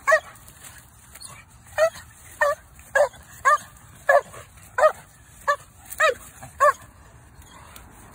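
A dog barking in short, high-pitched calls, each rising and falling in pitch: about ten of them, roughly one every half second, after a pause near the start.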